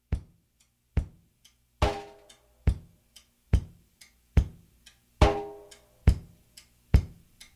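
Background music: a slow, steady drum beat with a hit a little under once a second, and a heavier, ringing hit every fourth beat.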